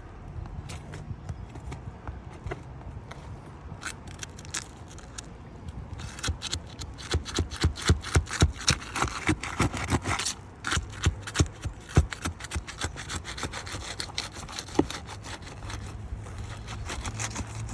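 Hand tool scraping and prying at asphalt architectural roof shingles during a repair attempt. There are light scrapes at first, then a fast run of sharp, repeated scraping strokes in the middle that eases off near the end.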